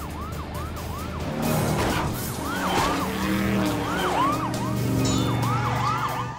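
Police siren wailing in rapid rising-and-falling sweeps, about three a second, over a steady low vehicle or music bed, as a cartoon sound effect.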